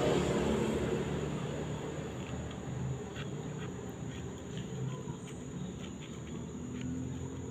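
A low, steady motor hum that fades over the first two seconds, with a thin high whine and a few faint ticks.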